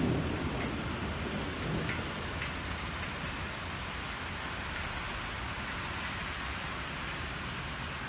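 Hail and rain falling steadily: a constant hiss with scattered sharp ticks of hailstones striking. The last of a thunder rumble dies away in the first second or two.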